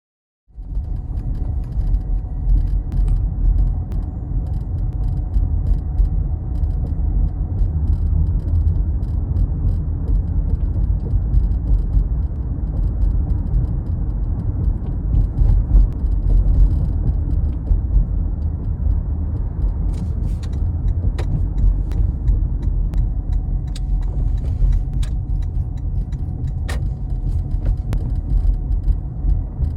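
Cabin noise of a Toyota Prius Prime on the move: a steady low road rumble with sharp rattling clicks, several of them in the second half. The rattle persists after a dealer repair.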